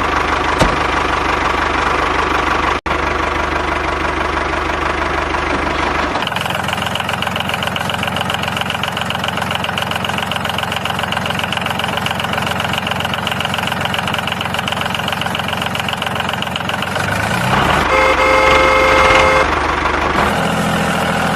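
The small motor of a homemade miniature tractor running steadily with a fast, even rattle. Its sound changes about six seconds in, and a few seconds of steady tones join it near the end.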